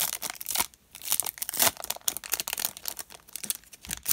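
A trading-card pack wrapper being torn open and crinkled by hand, with irregular crackles and a couple of louder rustling bursts.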